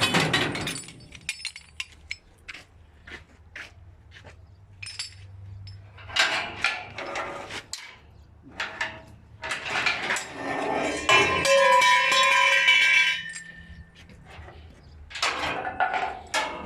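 Irregular metallic clanks and knocks over a steady low hum, with a held, pitched whine lasting about two seconds past the middle.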